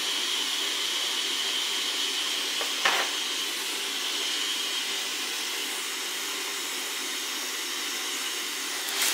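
Hot air tool blowing steadily with a faint high whistle, heating the graphics card so the solder under the GPU core melts and the core can be lifted off. Two sharp clicks, about three seconds in and near the end.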